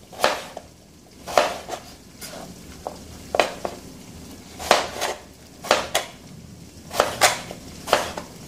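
Kitchen knife slicing carrot into half-moon slices, each cut ending in a sharp tap of the blade on the cutting board. There are about ten cuts, roughly one a second, unevenly spaced.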